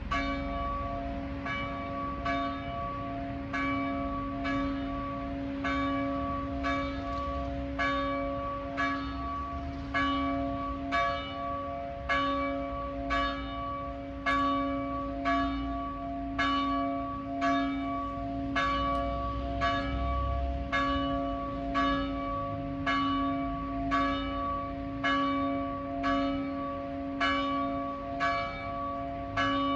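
The largest church bell, cast in 1948 by the Silesian Bell Foundry, tolling: regular clapper strikes about once a second over a long humming tone that carries between strokes. The strikes grow stronger after about ten seconds.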